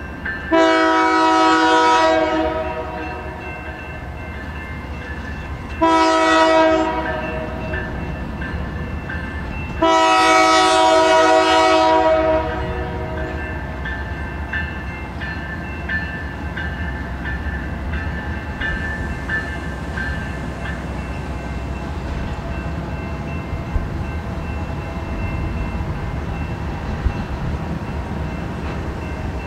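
Freight locomotive's air horn sounding three blasts, long, short, long, each a chord of several notes. Under and after the horn, the low rumble of the approaching diesel freight train runs on steadily.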